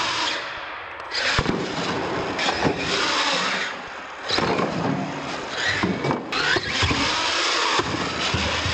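Radio-controlled monster trucks running hard on a concrete floor: motors whining up and down as the throttle is worked, tyres scrabbling, and several sharp knocks as the trucks land jumps and hit the ramps.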